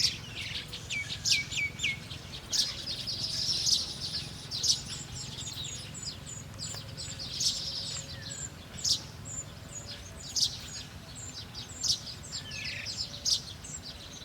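Small birds chirping and calling: short, sharp chirps throughout, a few falling whistled notes near the start, and a quick run of very high short notes in the middle, over a steady low background hum.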